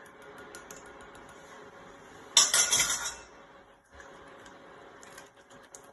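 A short, loud clatter of kitchenware about two and a half seconds in, lasting under a second, amid faint scraping and ticking of a wooden spoon stirring risotto in a steel pot.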